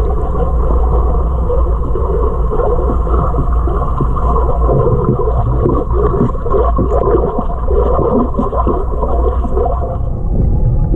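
Underwater noise heard through a submerged camera: a steady low hum with irregular gurgling and churning over it.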